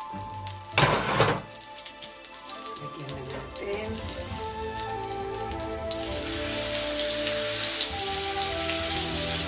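Hot oil bubbling in a nonstick wok with a light crackle, then a loud, dense sizzle from about six seconds in as slices of marinated pork go into the oil. A short loud rush of noise comes about a second in, and background music with held notes runs underneath.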